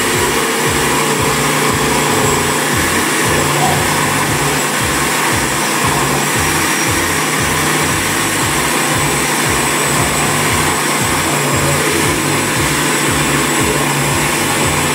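Oster countertop blender running steadily at speed, puréeing boiled squash and potato with broth and milk.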